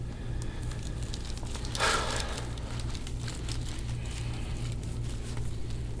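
Faint crackling and rustling from skin and soft tissue under an elbow pressed hard into the upper back during deep-tissue work, over a steady low hum. A short noisy rush about two seconds in is the loudest sound.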